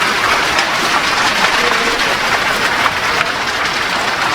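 Steady hiss of a city street in falling snow, with a few faint clicks.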